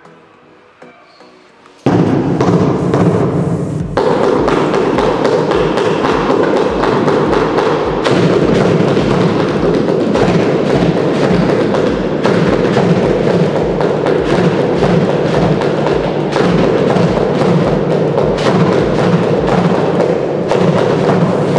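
Handmade percussion instruments played together in a steady rhythm, starting about two seconds in: a large homemade drum struck by hand giving a steady beat of low thumps, a small drum beaten with sticks, and shakers rattling.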